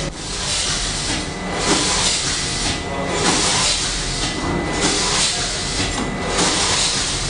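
Automatic doypack pouch packaging machine running, with a steady loud air hiss that drops away briefly and comes back about every one and a half seconds as the machine cycles.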